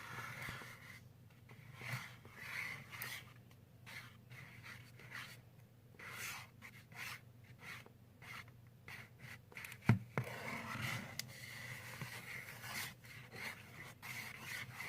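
Clear glue being stirred in a bowl with a utensil: repeated short, irregular scraping and rubbing strokes, with one sharp knock about ten seconds in.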